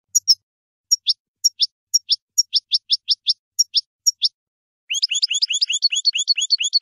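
European goldfinch (saka) singing: short, high separate notes a few per second, then, about five seconds in, a fast run of quick twittering notes.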